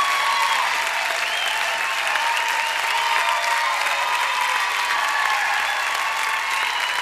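Steady applause from an audience, with voices faintly through it.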